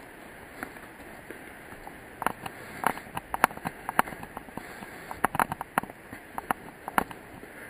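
Footsteps crunching on a stone and gravel forest path, a quick irregular run of sharp steps starting about two seconds in, over a steady hiss of background noise.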